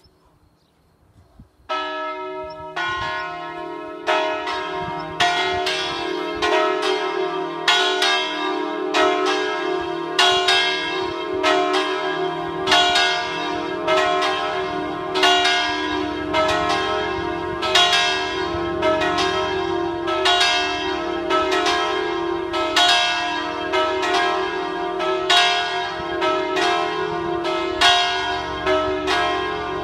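Swinging church bells, the three largest of a five-bell E-flat peal rung electrically with falling clappers, start ringing about two seconds in and keep up a steady, overlapping stream of strokes.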